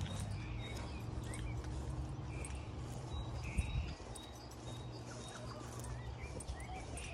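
Park ambience with short bird chirps and calls scattered throughout, over a low steady hum. A single soft knock comes a little past halfway.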